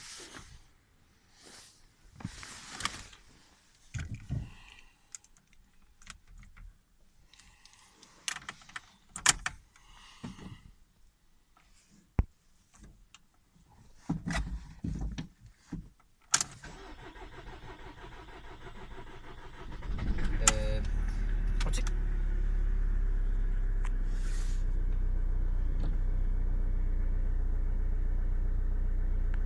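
Scattered clicks and knocks of someone settling into the car, then a faint hum. About two-thirds of the way in, the Opel Astra's 1.6-litre 136 hp diesel cranks briefly and catches on a cold start at −1 °C, then runs at a steady idle.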